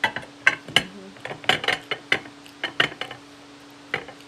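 Utensil clinking and scraping against a dish while eating, about ten sharp, irregular clicks.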